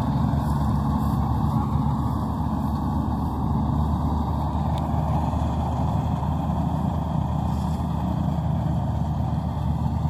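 Maxxi NDR85 rice combine harvester's engine running steadily under working load, a continuous low drone with no change in pitch.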